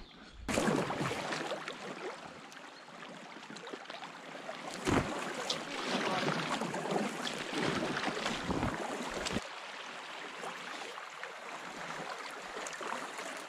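Rushing whitewater of a rapid around an inflatable packraft, with sharp splashes and knocks. It eases to a steadier, quieter rush about nine seconds in.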